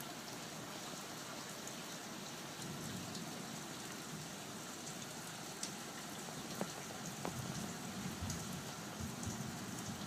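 Steady rain falling on a leaking roof, with a few sharp ticks about halfway through.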